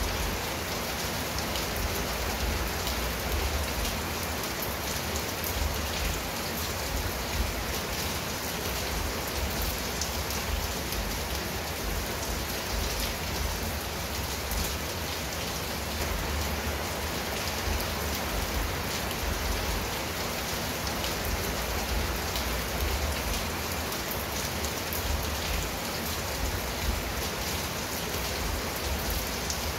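Steady rain falling on a clay-tile roof and garden leaves: an even, unbroken hiss with many small drop impacts ticking through it.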